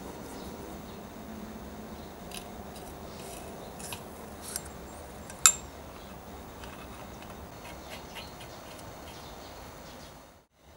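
Small clicks and taps of metal blowtorch pump parts being handled and fitted together, over a steady hiss. One sharp click about five and a half seconds in is much the loudest.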